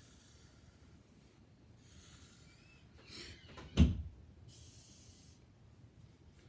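A pencil scratching across paper in several short curved strokes while rainbow arcs are drawn. A single sharp knock about four seconds in is the loudest sound.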